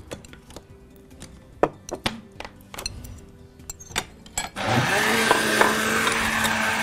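Light clinks of utensils and bowls, then about four and a half seconds in a countertop blender switches on and runs steadily with a green drink in its jar.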